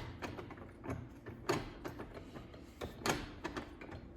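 Light metal clicks and knocks from the loose, not-yet-welded steel butterfly damper vanes of a smoker's firebox door being worked by hand, with three sharper knocks about a second and a half apart among lighter ticks.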